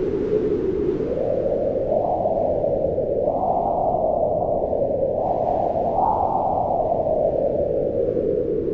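Strong mountain wind howling steadily, a low, moaning rush whose pitch swells up and sinks back every couple of seconds.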